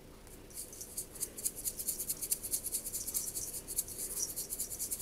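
Salt being shaken from a plastic spice shaker into a mixing bowl: a quick, even run of light rattling ticks that tails off near the end.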